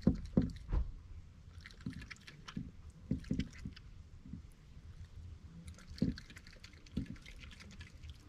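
Raccoon eating a soft mash of potatoes and asparagus from a glass bowl, with irregular wet chewing and lapping sounds. The loudest of these come in the first second.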